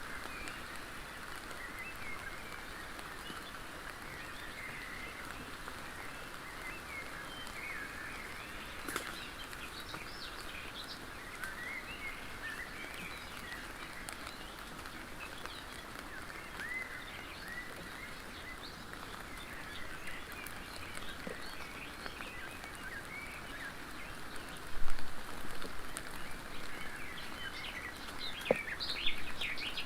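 Wild birds singing, many short chirps and trills, over a steady background hiss. About 25 s in, and again near the end, there are sudden louder noises, a knock or rustle close to the microphone.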